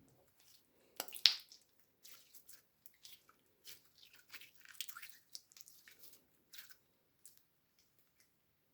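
Slime being squished and worked by hand: an uneven run of wet clicks and small pops, the loudest about a second in.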